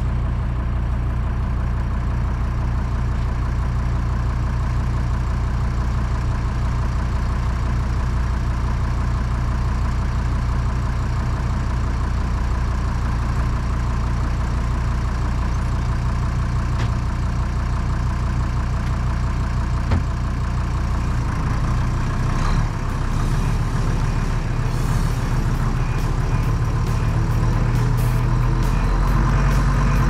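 Deutz DX tractor's diesel engine running steadily at a low idle close by. About two-thirds of the way through its note changes and it grows louder toward the end as the tractor takes up load, pulling out a root stump.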